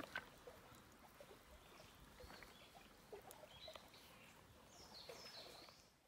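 Very quiet shoreline ambience: faint water lapping with small scattered ticks and splashes, and a few short high bird chirps in the second half.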